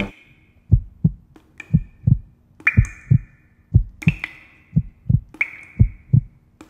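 Low double thumps repeating steadily like a heartbeat, about one and a half beats a second, with short ringing high pings over them every second or so.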